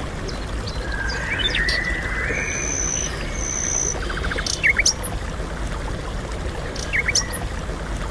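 Sneakers squeaking and scuffing on a paved floor in short, sharp chirps and skids as people dance, over a steady low rumble.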